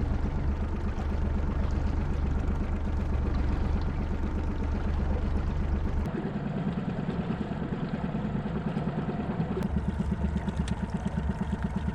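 Boat motor running steadily at trolling speed, with a fast, even pulsing; its tone shifts about six seconds in.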